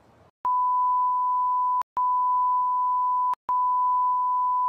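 TV color-bars test tone: a steady, pure, high beep. It plays as three long beeps of about a second and a half each, with a click and a short gap between them.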